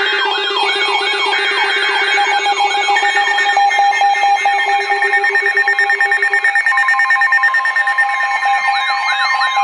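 Layered electronic alert tones of a NOAA Weather Radio severe thunderstorm warning alert: warbling siren-like alarms repeat about twice a second over a steady buzzing tone. Short bursts of digital data-header tones sound in the first couple of seconds. A steady warning tone begins about two-thirds of the way in, as the buzzing tone stops.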